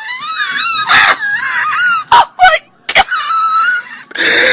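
A man laughing in high, wavering, wheezy squeals, in several short pieces with sudden breaks between them.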